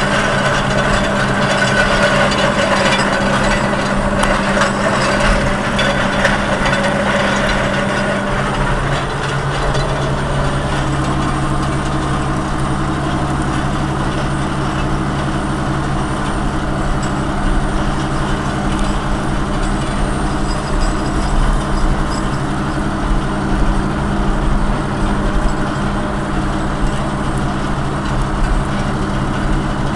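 Ford TW30's turbocharged six-cylinder diesel running steadily under load, heard from inside the cab, with a metallic rattling clatter from the roller harrow over the first several seconds that then fades.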